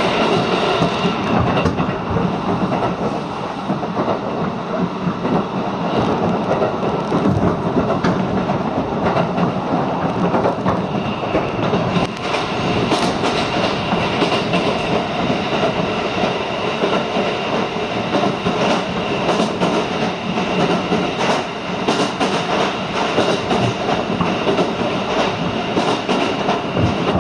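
Electric train running at speed through a tunnel, heard from inside the carriage: a steady loud rumble of wheels on rail with frequent clicks over the rail. A thin high tone joins the noise from about halfway through.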